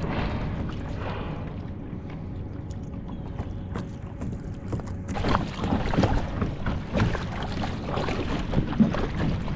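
Water splashing and lapping around a kayak, with wind on the microphone. About five seconds in the splashing becomes busier and brighter, with many irregular small splashes.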